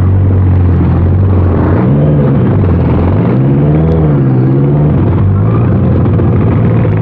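Honda CBR650R inline-four engine running loud through an aftermarket Orion exhaust, with no wind noise. Its pitch holds steady, dips and recovers about two seconds in, then swells up and falls back around four seconds in before settling.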